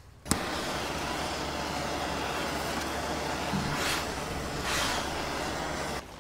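MIG welding arc burning: a steady, even hiss that starts abruptly with a sharp click and cuts off suddenly near the end, with two brief louder surges toward the end.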